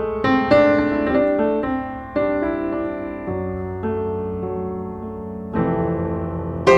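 Background music: a piano playing a slow melody of sustained chords.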